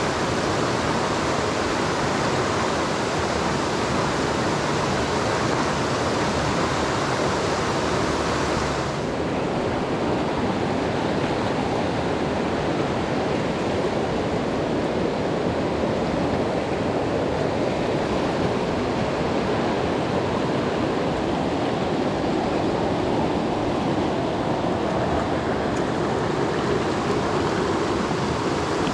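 Mountain stream rushing over rocks in riffles and small rapids, a steady rush of water. About nine seconds in the sound turns duller, with less hiss.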